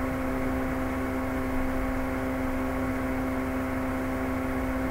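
A steady hum with a constant low tone and several fainter steady overtones.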